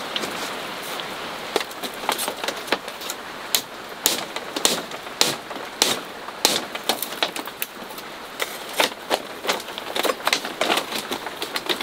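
Rain hissing steadily. From about a second and a half in, it is joined by many irregular sharp taps and knocks of a bamboo stick against a split-bamboo slat floor.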